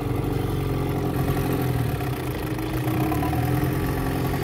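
Mercury Merc 110 two-stroke outboard motor idling steadily just after a pull start, with the choke being turned off while it warms up.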